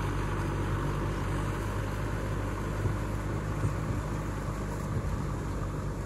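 Kubota M6040SU tractor's diesel engine running at a steady, even drone while pulling a tillage implement through a wet rice paddy.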